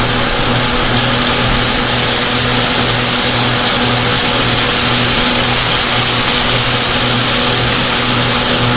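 Chicken drumsticks frying in a pan of hot oil: a loud, steady sizzle, with a steady low hum underneath.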